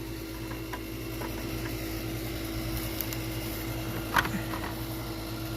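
Steady low background hum with a few faint clicks and one sharper tap about four seconds in, light handling sounds on the lawn mower.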